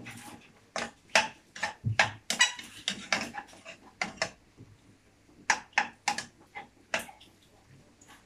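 Metal spatula scraping and clinking against a frying pan while stirring a chicken-and-egg stir-fry: irregular sharp strikes, a few a second, dying away near the end.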